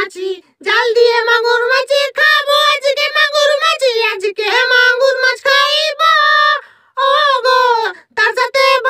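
A high-pitched, child-like voice singing a song in short phrases, with brief breaks between them.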